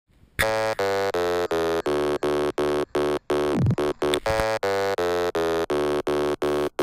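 Electronic music: a buzzy synth chord repeated in short, evenly spaced stabs, about three a second, with a falling sweep about halfway through.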